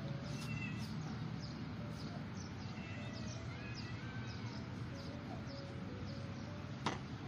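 Small birds chirping repeatedly in short high falling calls over a steady low background rumble. One sharp tap near the end.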